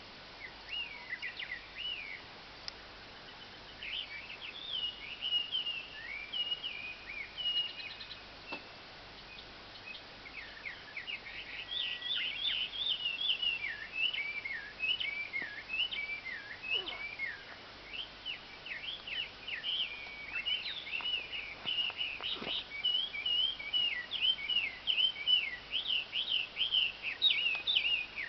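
A bird chirping and twittering in a long, chattering string of short high notes that sweep up and down, pausing briefly about a third of the way in, then picking up again busier than before.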